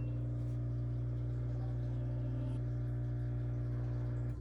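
Samsung front-load washing machine starting its cycle after repair: a steady low electric hum from inside the machine that cuts off suddenly near the end.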